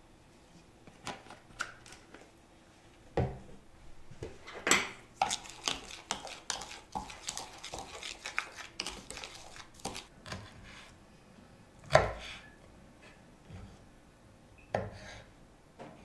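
A metal spoon stirring and scraping a dry mix in a plastic bowl, with a busy run of scraping and clicking in the middle. There are a few sharp knocks of spoon against bowl, the loudest about twelve seconds in.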